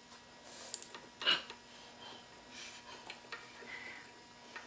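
Faint clicks of pliers gripping metal at a bolt inside a compressor crankcase, with a short huff of breath from the effort about a second in.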